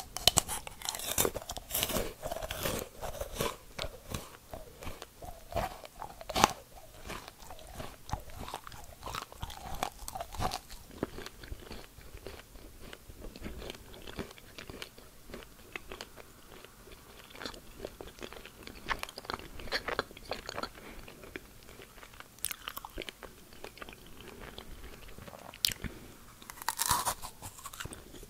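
Close-miked eating of white-chocolate-coated dried strawberries: repeated crisp, crunchy bites and chewing. The loudest crunches come in the first few seconds, about six seconds in, and near the end.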